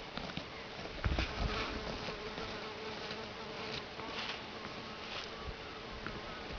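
A wombat digging in dry soil: claws scratching and loose dirt flung back in short, scattered sprays. A flying insect buzzes steadily through most of it.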